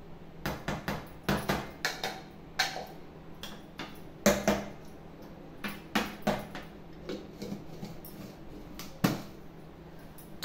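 Small glass jar knocked and tapped against a stainless steel plate to shake out ground spice powder: a string of irregular sharp knocks and clinks, the loudest about four seconds in and again near the end.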